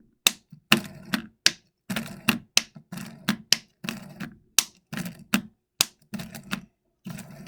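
Silicone push-pop bubbles on a dimple fidget spinner toy being pressed one after another: a quick run of sharp clicking pops, about three a second.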